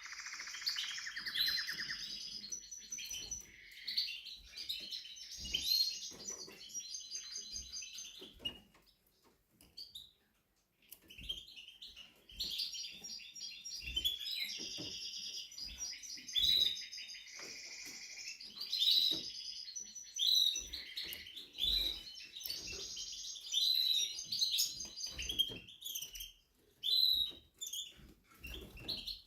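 Timbrado Spanish canary singing in long runs of rapid trills and rolls. It pauses for about two seconds about a third of the way in, then sings on.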